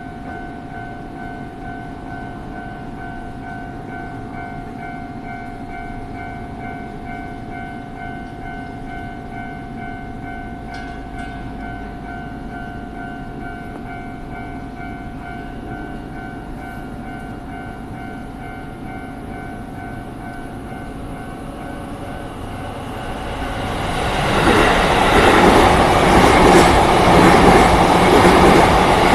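Japanese level-crossing warning bell ringing steadily with the barrier down. About 23 seconds in a train runs through the crossing, rising quickly to a loud rush that drowns the bell.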